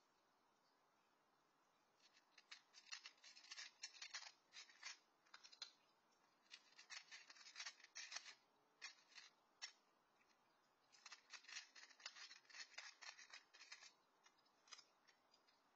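A cat crunching dry kibble in quick runs of crisp crunches. The crunching starts about two seconds in, pauses for a moment about two-thirds of the way through, then resumes.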